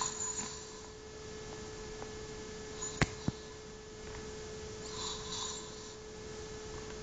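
A man's snoring breaths, a short hiss-like snore at the start and another about five seconds in, over a steady electrical hum. Two sharp clicks about three seconds in are the loudest sounds.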